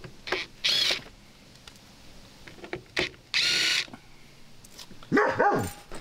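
Cordless power driver whirring in two short bursts, about a second in and again past three seconds, as it backs out the hex-head screws of a refrigerator's rear access panel. Near the end comes a short vocal sound that falls in pitch.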